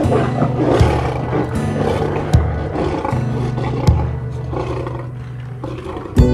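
Lion roaring and growling over background music with a steady low bassline and a drum hit about every second and a half.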